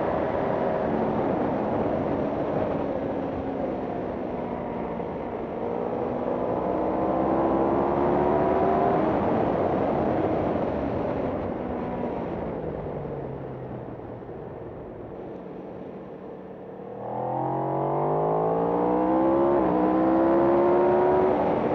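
Racing motorcycle engine at full throttle on a race track. It revs up through the first several seconds, then falls in pitch and quietens as the bike slows for a corner. About seventeen seconds in it opens up hard again, and a couple of seconds later it upshifts and the revs drop.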